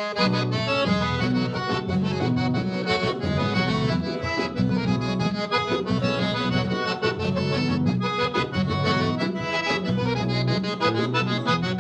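A band playing accordion-led gaúcho dance music, striking up at the start with the accordion carrying the melody over bass and rhythm; an instrumental opening with no singing.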